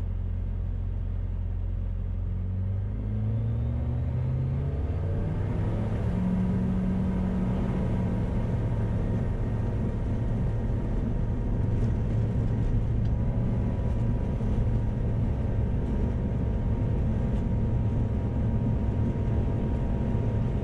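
Sling 4's turbocharged Rotax 914 four-cylinder engine and propeller coming up to takeoff power. The pitch rises over the first few seconds, then holds at a steady full-power drone with a rough rumble underneath.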